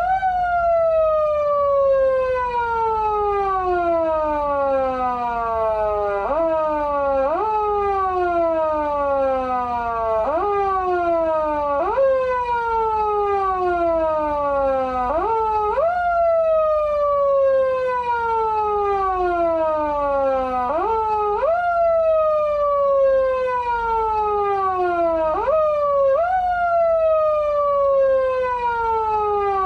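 PATLITE SAP-500BK-PV siren amplifier in foot-siren mode, imitating a motor-driven siren: the wail shoots up in pitch with each pedal press and slides slowly down between presses, again and again at uneven intervals.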